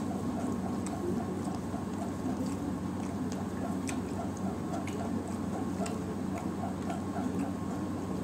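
Fingers mixing rice and fish curry on a steel plate: soft wet squelches and scattered faint clicks, over a steady background hum with a faint regular tick about three times a second.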